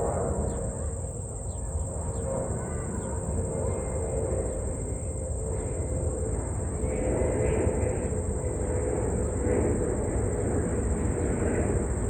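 Steady high-pitched insect trilling, typical of crickets, over a continuous low rumble, with a few faint short chirps.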